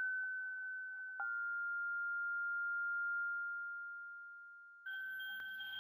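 Pure electronic sine tones held steady at a high pitch, with a fainter lower tone beneath. About a second in, a click steps the tone slightly lower, and it fades slowly. Near the end, a new high tone with its lower companion enters with another click.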